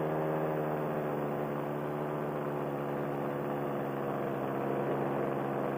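Paramotor engine and propeller droning steadily in flight, an even pitched hum with no change in throttle, picked up through the pilot's band-limited helmet communication microphone.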